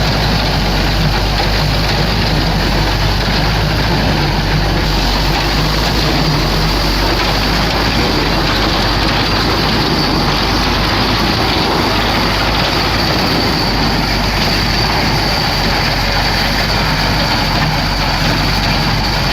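Massey-Harris Super 101 tractor engine running steadily under load while it drives a New Idea T-6 square hay baler, mixed with the baler's continuous mechanical clatter.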